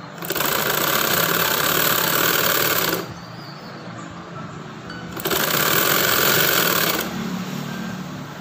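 Sewing machine stitching cloth in two runs: one of about three seconds at the start, then a pause of about two seconds, then a second run of about two seconds.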